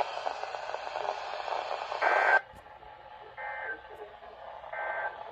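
Weather radio broadcast through a receiver's speaker: low radio speech, then three short beeps about a second and a half apart.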